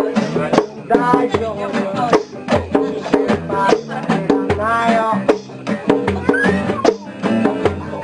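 Live acoustic music: guitars strummed in a steady beat with percussion, and voices singing.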